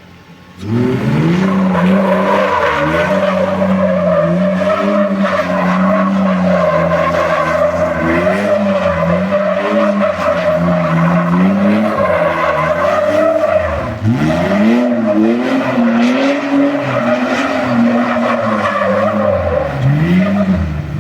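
Car engine revving hard with tyres squealing, its pitch rising and falling continuously as if driven in skids or circles; the engine note dips sharply about fourteen seconds in and again near the end.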